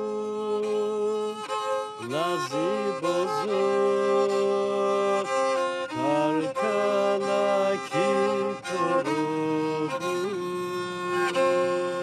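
Black Sea kemençe, a three-stringed bowed fiddle, playing a folk melody of held notes with sliding glides between them.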